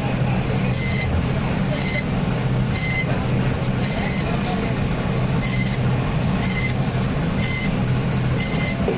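Electric bone-cutting band saw running steadily with a low motor hum as carp pieces are pushed through the blade and cut into steaks through the bone. A short, high-pitched ringing tick comes back about once a second.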